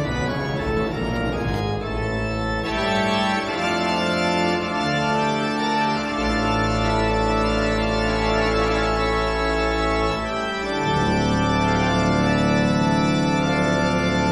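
Background music of held chords that change every few seconds.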